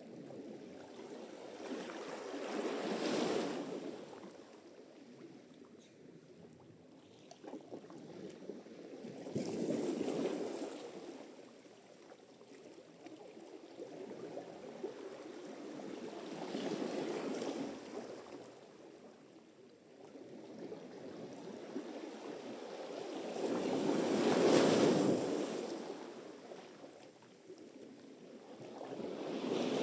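Sea surf: waves breaking and washing up the shore in slow surges, one about every seven seconds, each swelling to a rush of spray and falling back.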